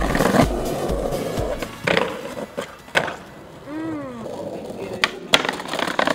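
Skateboard sounds: wheels rolling on pavement and sharp board knocks from pops and landings, three of them, the loudest a little past five seconds. Music with a steady bass beat plays under the first couple of seconds, then drops away.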